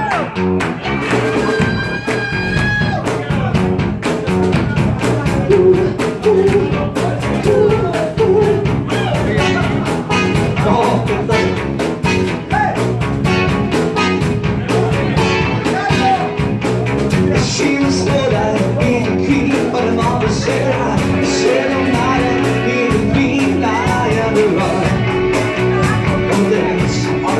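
Live band playing a rock and roll tune with a steady drum beat: Yamaha electric keyboard, drum kit and electric guitar, with singing.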